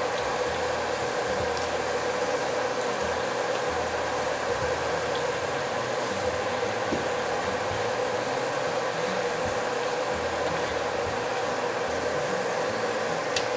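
Battered shiitake mushroom pieces deep-frying in a wok of hot oil, a steady sizzle over a steady hum, while they are fried until their water is driven out and they turn crisp.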